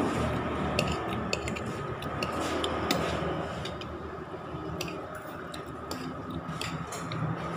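A person eating fried chicken and rice: chewing, with irregular small clicks and light clinks of a metal spoon against a plate, over a faint steady hum.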